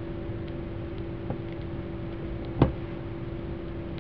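Steady background hum with a few faint ticks, and one sharp knock about two and a half seconds in.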